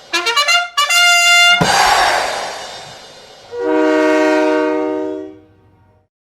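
Brassy arena goal music: a quick run of rising notes into a held note with a sharp hit, a long fading tail, then a final held chord that dies away about five and a half seconds in.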